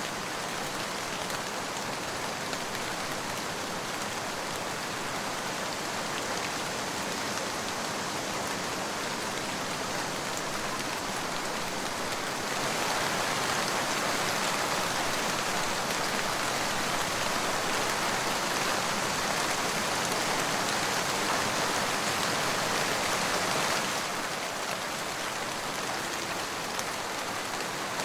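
Steady rain falling. About twelve seconds in it gets louder for a stretch, then drops back abruptly near twenty-four seconds.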